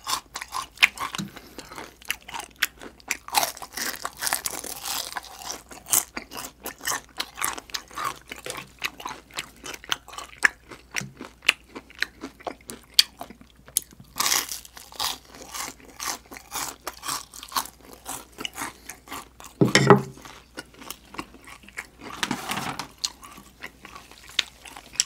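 Crispy deep-fried chicken skin being bitten and chewed: a rapid, irregular run of crisp crunches. One louder, duller sound stands out about twenty seconds in.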